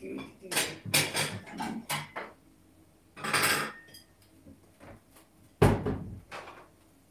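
Kitchen things being handled and knocked together while the microwave is cleaned up. There is a quick run of clatters and knocks in the first two seconds, a short scraping hiss about three seconds in, and one heavy thud later on.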